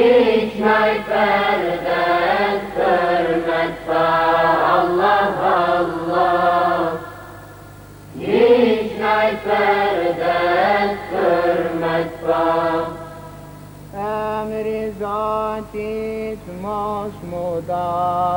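Girls' choir singing an ilahija, an Islamic devotional hymn, in two long phrases with a short breath pause about 7 s in. From about 14 s the singing turns quieter, in shorter notes. A faint steady low hum runs beneath.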